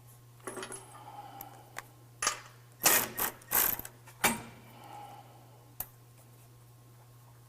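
Hand ratchet wrench clicking in several short runs, tightening the bolts that secure a steel bumper winch tray to its frame brackets.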